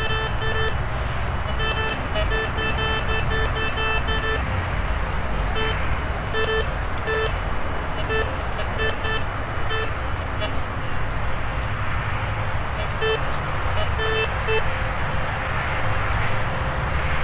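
White's metal detector giving short, buzzy beeps as its search coil is swept over the grass. The beeps come in irregular clusters, several a second at times, each one signalling buried metal under the coil. A steady low rumble runs underneath.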